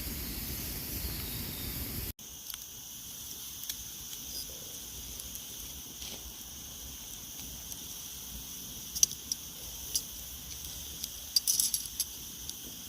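Meat sizzling on a grill over a campfire: a steady hiss with a few sharp pops and crackles, bunched together about nine seconds in and again near the end.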